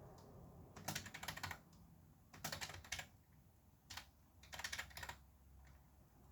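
Typing on a computer keyboard in three quick flurries of keystrokes, with a single keystroke between the second and third.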